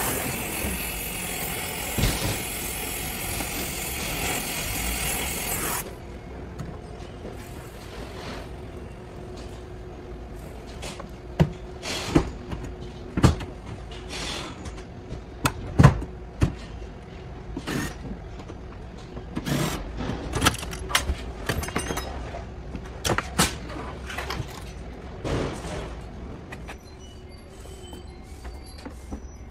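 A handheld gas torch hisses steadily and shuts off abruptly about six seconds in. Scattered sharp metallic knocks and clanks of tools and car parts being handled follow.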